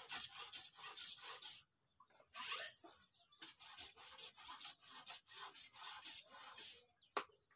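Rough scraping or rubbing, stroke after stroke, in runs of a second or more separated by short pauses.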